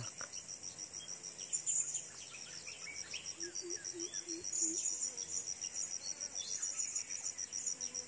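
A steady, high-pitched insect chorus with a fast pulsing trill, over scattered short bird chirps. Around the middle comes a short run of about five low notes.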